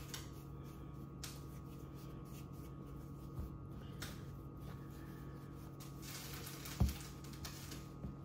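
Soft rubbing of hands rolling dough on a floured countertop, faint over a steady low hum, with one soft thump about seven seconds in.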